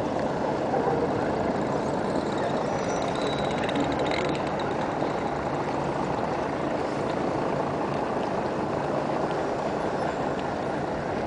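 Steady city-square background noise: a city bus driving past, with a constant hum of traffic and faint distant voices.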